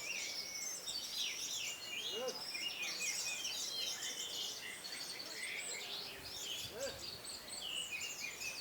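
Several orange-headed thrushes singing at once, their trills, whistles and rapid repeated notes overlapping in a dense, continuous chorus.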